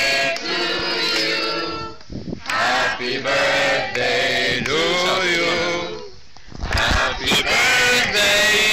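A group of people singing together, with held notes that rise and fall. The singing breaks off briefly about two seconds in and again about six seconds in.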